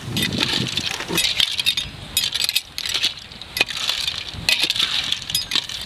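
Metal ladle stirring clams in their shells through curry in a large metal pot: a rapid, irregular run of clinks and scrapes as shells knock against each other, the ladle and the pot wall.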